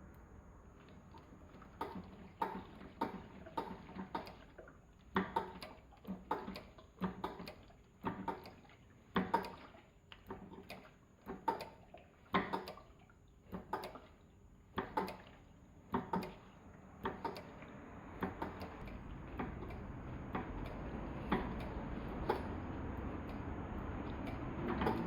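Irregular sharp metallic clicks and rattles, roughly one every half second to a second, from the front brake of a motorcycle, around its Brembo disc rotor: the 'katakata' rattle being traced. After about 17 s the clicks grow fainter and a steady low hum rises beneath them.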